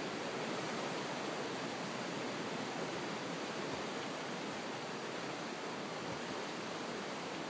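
A fast-flowing river rushing steadily, an even wash of water noise with no breaks.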